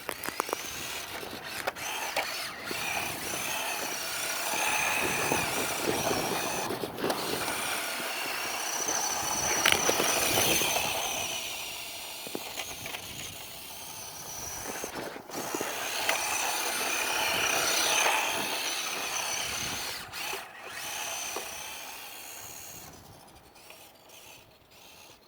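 Small electric motor of a 1/10-scale WPL D12 RC drift truck whining at full throttle, its level swelling and easing as the truck drives and slides, then fading away near the end.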